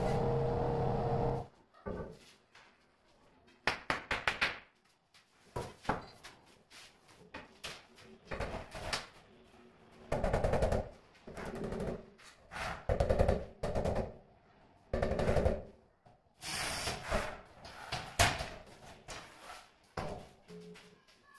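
A rubber mallet tapping a marble slab in clusters of quick knocks, bedding it down into wet mortar to bring it level under a spirit level. The first second or so holds a steady, louder noise before the tapping starts.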